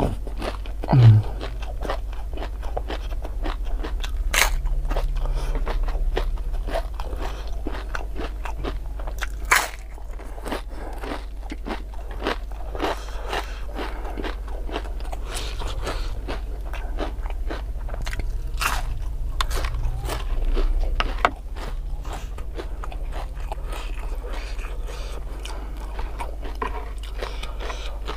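Crisp fried battered tempeh being bitten and chewed, with many sharp irregular crunches throughout. A short low falling hum from the eater comes about a second in.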